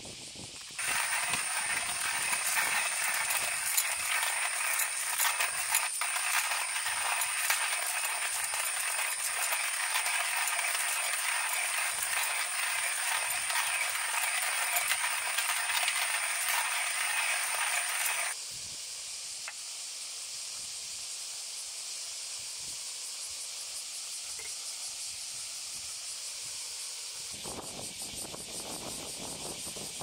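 Hand-cranked coffee grinder grinding coffee beans: a dense, loud crunching crackle that stops suddenly about 18 seconds in. A quieter steady hiss follows.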